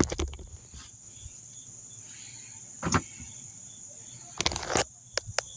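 A few sharp knocks and clicks, the loudest cluster a little after four seconds in, over a faint steady high-pitched whine.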